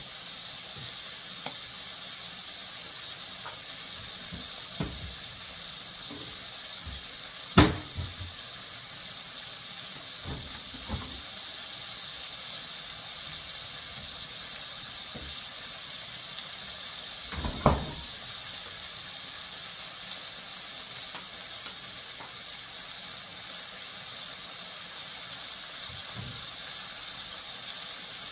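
Flour-coated chicken livers deep-frying in hot oil in an enameled cast-iron Dutch oven: a steady sizzle. A few sharp knocks cut through it, the two loudest about 7.5 and 17.5 seconds in.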